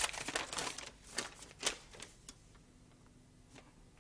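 Paper letters being leafed through by hand: a quick run of crisp rustles and flicks for about the first two seconds, then only a few faint rustles.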